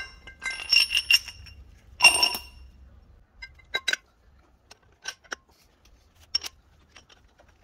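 Steel bearing-press parts clinking and knocking as a threaded rod, sockets and washers are handled and fitted through a brake drum's hub. A few ringing clinks come in the first two and a half seconds, then scattered lighter clicks.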